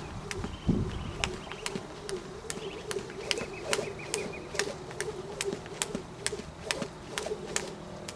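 A jump rope slapping the bare dirt ground in a steady rhythm, about two to three sharp strikes a second, as it is skipped continuously. Birds call in the background.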